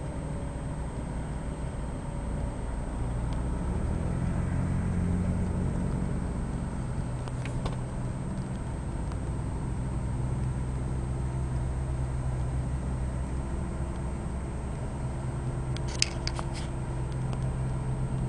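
Car engine running, heard from inside the cabin: a steady low hum whose pitch shifts slightly about four seconds in. A few sharp clicks sound near the end.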